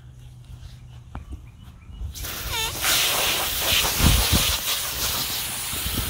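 Garden hose spray nozzle switched on about two seconds in, water hissing out in a steady spray onto a plastic toy truck on the grass.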